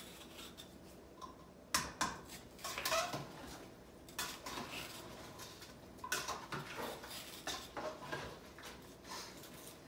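A metal spoon knocking and clinking against a stainless steel cooking pot, in scattered sharp strikes with short pauses between them.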